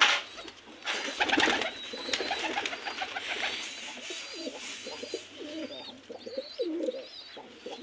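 Domestic pigeons cooing over and over, with a loud burst of rustling about a second in.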